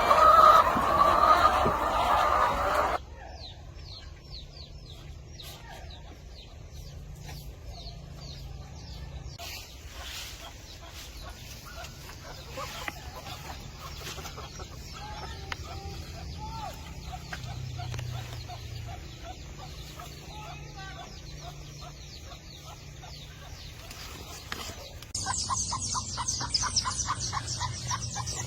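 Flock of laying hens clucking and calling. The sound changes abruptly about three seconds in, dropping to quieter scattered clucks, and turns loud again near the end with rapid high-pitched calls.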